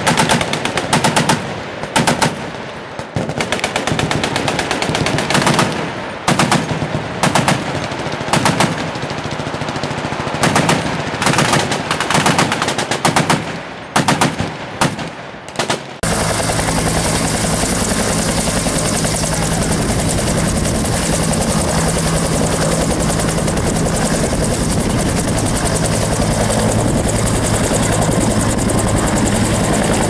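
Several machine guns firing overlapping bursts, rapid strings of shots with short gaps, for about the first half. Then an abrupt change to a UH-1 Huey helicopter running, its turbine and turning rotor making a steady, unbroken sound.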